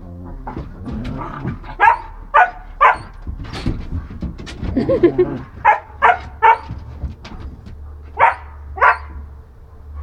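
German shepherd barking in quick groups of two or three short, sharp barks, with a brief wavering whine about halfway through.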